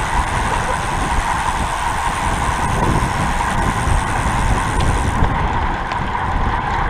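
Steady wind rush buffeting the microphone of a camera mounted on a road bike riding at racing speed in a bunch, mixed with tyre noise on asphalt. A thin high hiss in the noise drops away about five seconds in.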